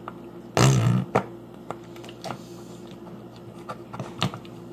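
Slime mixed with plastic bracelet beads being squeezed and handled by hand: scattered small clicks and squelches, with one louder burst of handling noise about half a second in.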